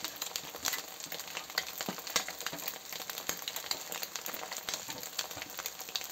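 Hot oil sizzling and crackling in a wok as freshly added chopped cabbage, carrot and green beans fry, a steady sizzle dotted with many small pops.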